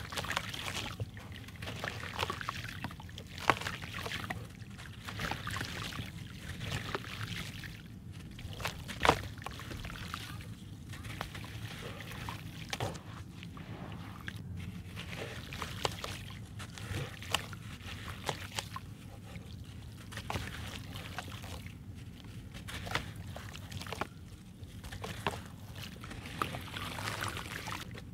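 Crumbly cement block being crushed by hand, its powder pouring and pattering into muddy water, with hands sloshing in the water and dipping the block. Sharp crackles and snaps of the crumbling material come throughout, the loudest about three and a half and nine seconds in.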